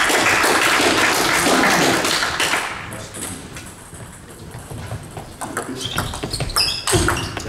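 Table tennis rally: the celluloid ball clicking sharply off bats and table, a few hits a second, beginning about five seconds in. Before it comes a loud stretch of voices and hall noise that dies away after a couple of seconds.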